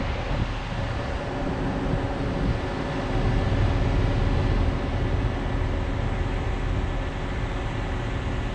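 Steady road traffic noise, a low rumble of vehicles that swells a little about three seconds in.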